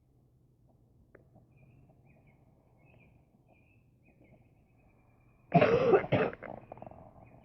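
A person coughs about five and a half seconds in: a loud, short double cough with a few softer bits trailing after. Faint high chirps sound throughout.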